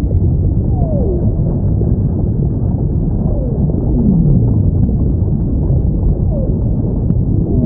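Whale calls: a series of moans that each glide downward in pitch, the lowest and loudest about four seconds in, over a steady low underwater rumble.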